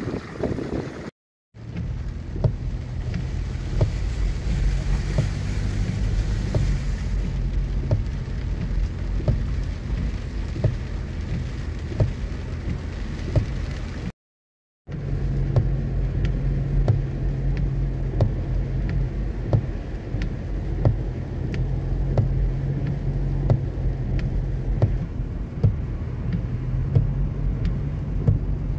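Car driving on a rain-soaked road, heard from inside the cabin: a steady low engine hum and tyre hiss on the wet surface, with scattered sharp ticks of raindrops hitting the car. The sound cuts out briefly twice.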